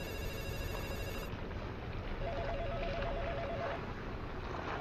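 Electronic telephone ringing with a rapid two-tone trill, one burst of about a second and a half starting about two seconds in and another starting at the very end, the ring of an incoming call. A brief high electronic tone sounds during the first second.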